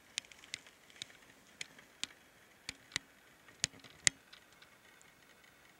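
About ten sharp, irregularly spaced clicks over roughly four seconds, the last one the loudest, over a faint steady background.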